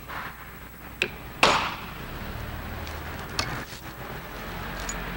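Metal motor parts and tools clicking and knocking on a workbench as they are handled: a light click about a second in, a louder metallic knock just after, and another click about three and a half seconds in, over a low steady shop hum.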